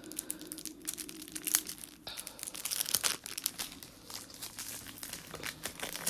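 Plastic wrapper on a pack of game cards being opened and handled: a run of small crackles, busiest about two to three seconds in.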